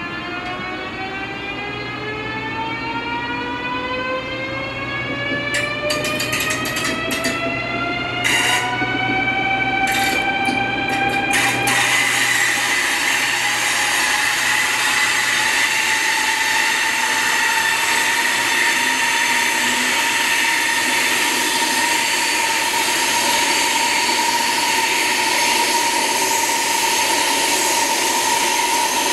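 CRH380 high-speed train's traction motors whining as the train accelerates. A stack of tones climbs steadily in pitch for about twelve seconds, with a few clicks along the way, then levels off into a steady whine over growing running noise.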